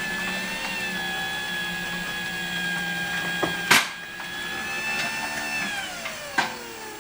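LiftMaster jackshaft garage door opener's electric motor and gear drive running with a steady whine, with a sharp click about halfway through; near the end the pitch falls as the motor slows down.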